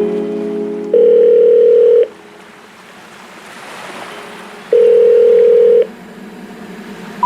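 Two loud, steady electronic tones like a dial tone, each held for about a second, one about a second in and one near the middle, with a faint rushing noise between them.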